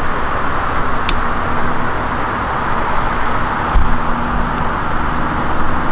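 Steady noise of road traffic, with a single sharp click about a second in.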